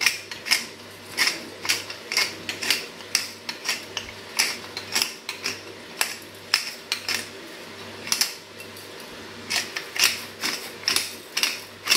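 Hand-held seasoning mill twisted over a pot: a run of crisp grinding clicks, about two or three a second, with a short pause around two-thirds of the way through.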